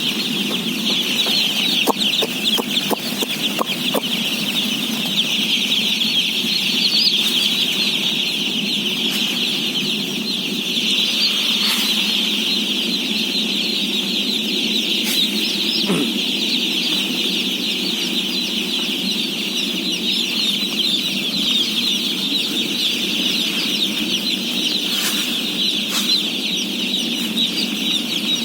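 Thousands of day-old chicks peeping at once, a dense, unbroken high chorus of chirps. A steady low hum runs underneath, with a few faint clicks.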